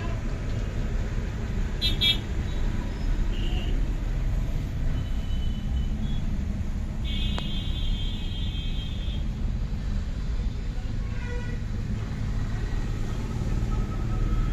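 Road traffic heard from inside a car: a steady low rumble of engines, with vehicle horns honking several times. There are short toots about 2 seconds in and again near 11 seconds, and a longer honk of about two seconds a little past the middle.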